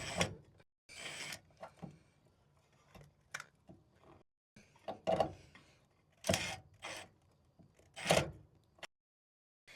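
Intermittent handling sounds: a handful of short knocks, scrapes and clicks with quiet gaps between them.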